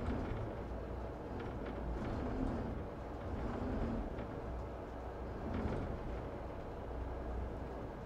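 Volvo Penta IPS500 diesel engines running at low revs in reverse under joystick control, a steady low hum heard from inside the helm.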